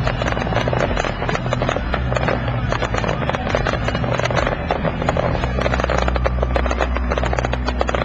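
Fireworks crackling and popping in a dense, continuous stream over crowd chatter, with a steady low hum underneath.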